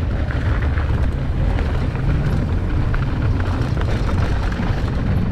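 Wind buffeting a GoPro's microphone over the noise of mountain bike tyres rolling fast on dry hardpacked dirt, with short clicks and rattles from the bike over bumps.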